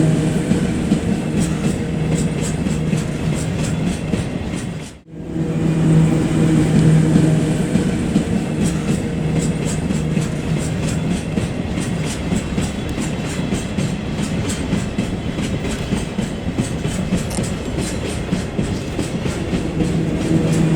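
Model freight train running on track: a steady motor hum with a constant pitched tone, and a quick run of regular clicks from the wheels crossing rail joints, clearest in the second half. The sound cuts out for a moment about five seconds in.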